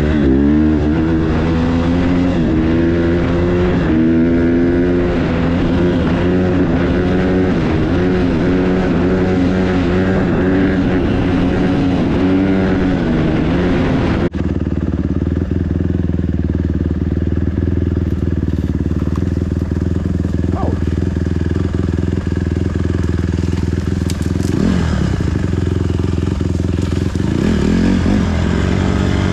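Dirt bike engine on a trail ride, revving up and down repeatedly as the rider works the throttle. About halfway through the sound changes abruptly to a steadier, lower engine note with a few short rises.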